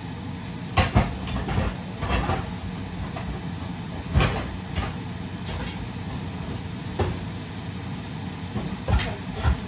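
Kitchen cookware clattering off-camera as someone looks for a lid for a frying pan: irregular sharp knocks and clinks of pans and lids, about nine in all, over a steady low hum.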